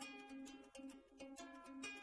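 Quiet background music played on a plucked string instrument, picking short notes in a light, steady pattern.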